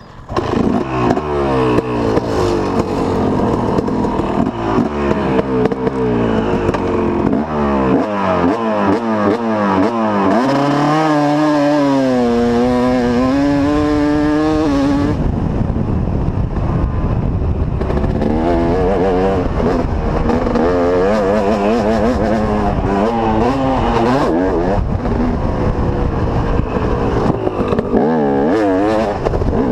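Motocross bike's engine pulling away hard, then revving up through the gears with its pitch climbing and dropping at each shift, and a held high rev for several seconds about ten seconds in.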